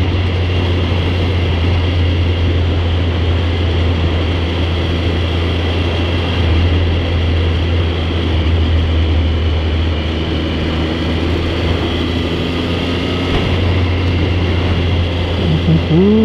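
Triumph Sprint ST 955i's three-cylinder engine running at a steady cruise, with wind and road noise rushing past the bike-mounted microphone.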